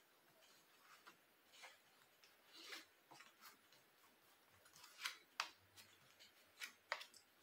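Tarot cards being spread and drawn by hand: a scatter of faint, short card slides and snaps, the clearest around five seconds in.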